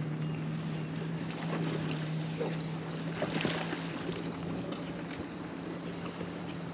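Electric bow-mounted trolling motor humming steadily, over wind and small waves lapping at the boat's hull.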